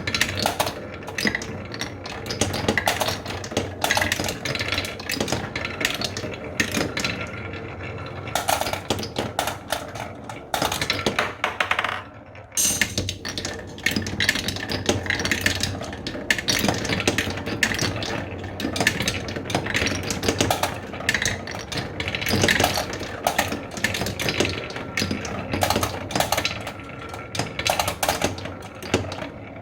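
Many marbles rolling and clacking through a marble run, a dense, continuous rattle of small hard impacts, with a brief break about twelve seconds in.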